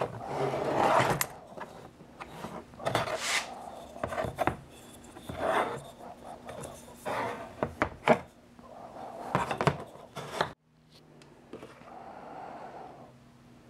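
Walnut foregrip and rifle parts being handled and fitted together against a plastic lid: a series of short wood-on-metal rubbing scrapes with sharp clicks and light knocks, one every second or two, turning to softer rustling after an abrupt break about ten and a half seconds in.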